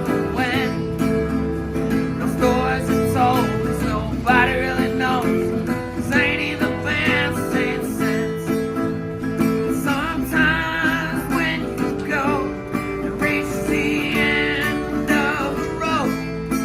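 Acoustic guitar strummed in a country-style song, with a voice singing over it in wavering phrases.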